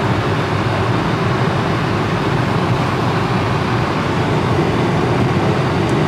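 Steady, deep rumble of a passenger airliner's cabin: engine and airflow noise heard from inside the plane.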